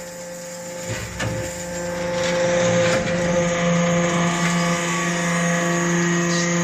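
Hydraulic metal-chip briquetting press running: a steady motor-and-pump hum with a higher whine, growing louder about two seconds in and then holding steady. A couple of light knocks come about a second in.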